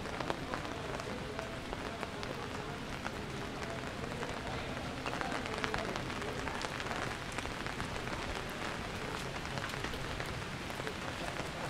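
Steady rain falling on hard surfaces, a continuous hiss dotted with many small drop ticks.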